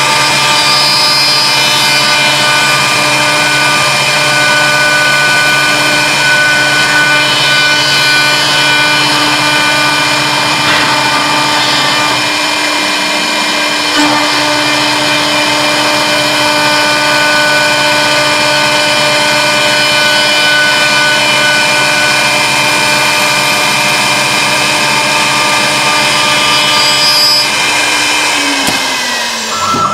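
CNC wood lathe's horizontal router spindle running with a steady whine as it cuts spiral grooves into a turning wooden baluster. A lower hum drops out about twelve seconds in, and near the end the whine falls in pitch as the machine winds down.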